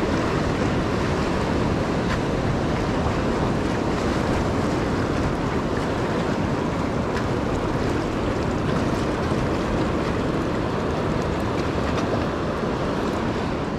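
Sea surf and wind making a steady rushing noise, with wind buffeting the microphone.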